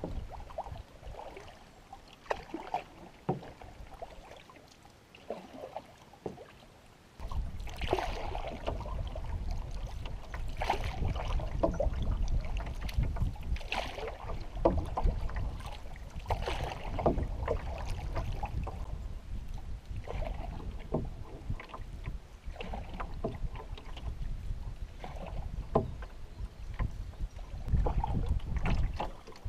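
Canoe paddling: a wooden paddle dips and splashes in repeated strokes, and water laps against the hull. From about seven seconds in, a steady low wind rumble on the microphone sits under the splashes.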